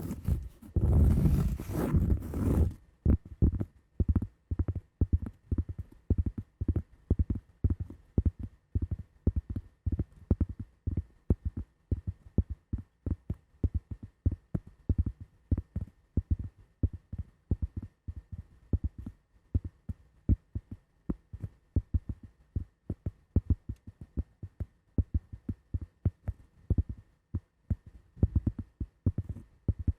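Scratching on a cork pad and wooden block for the first few seconds, then a long run of dull taps on them, several a second in an uneven rhythm.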